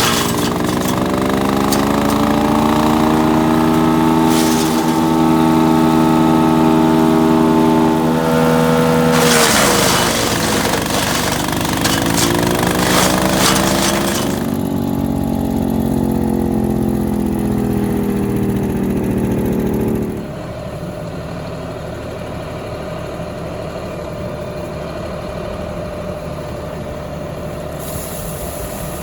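Split-Fire 4090 wood chipper's engine running under load as wild cherry limbs are fed through. Its pitch sags as a limb bites and recovers, with crackling of wood being chipped. About twenty seconds in, it drops to a quieter, steady running.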